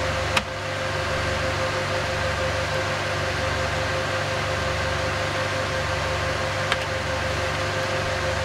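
Steady whir and hum of a running file server, its cooling fans and eight IDE hard drives, with a held tone and a slow pulsing low hum. Two short clicks of keyboard keys, one just after the start and one about seven seconds in.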